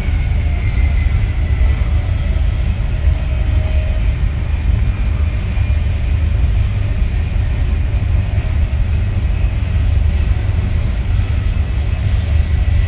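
Passenger train running at speed, heard from inside the coach: a steady low rumble of wheels on the track, with a faint high whine over it.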